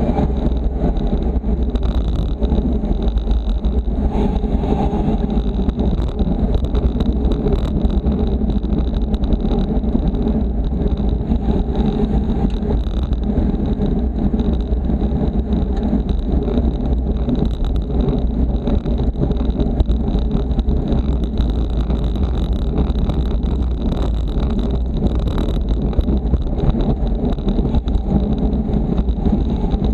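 Steady low rumble of wind buffeting the microphone of a camera on a road bicycle riding at race speed in a pack, with road and tyre noise mixed in.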